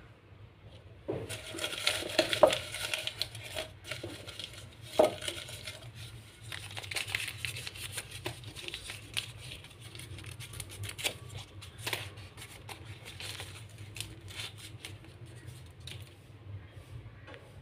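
Small folded paper packets being torn and unfolded by hand: irregular paper crinkling and rustling with quick crackles, loudest in the first few seconds, with a couple of sharper snaps.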